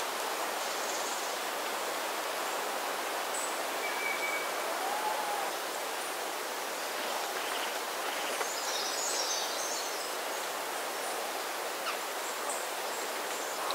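Steady rushing cloud-forest ambience with a few faint bird calls: a short high note about four seconds in, a soft low whistle that rises and falls about a second later, and a brief high chittering around nine seconds in.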